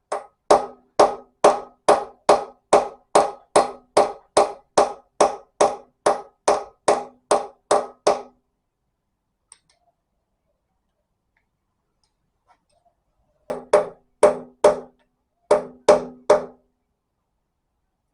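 A hammer strikes a socket used as a drift, driving Welsh (core) plugs into an engine block. The strikes are evenly spaced, about three a second, each with a short metallic ring. They stop after about eight seconds, and two short bursts of three strikes follow near the end.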